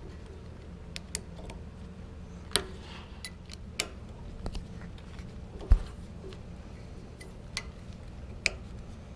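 Hand tools clinking and clicking on the hex-head bolts and aluminum head of a pressure washer pump as the bolts are worked loose: scattered sharp metallic ticks at irregular intervals, with one heavier knock a little past the middle.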